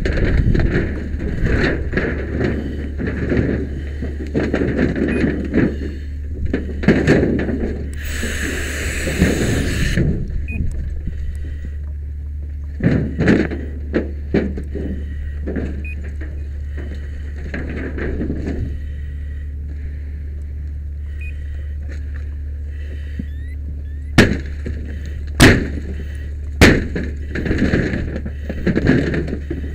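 Fire overhaul: a pike pole prying and tearing off metal siding, with irregular scraping, knocks and clatter and three sharp bangs near the end, over a steady low hum. A two-second rush of hose spray comes about eight seconds in.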